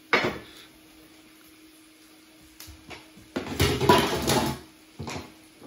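Kitchen utensils and dishes clattering: a sharp knock, then about a second of cutlery rattling, then one more knock near the end.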